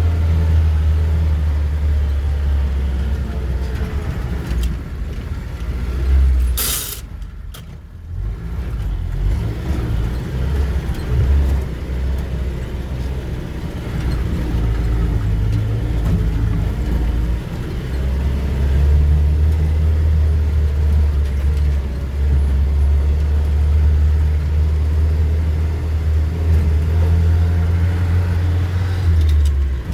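Vehicle driving off-road: a steady, heavy low rumble of engine and drivetrain, with a single sharp knock about seven seconds in.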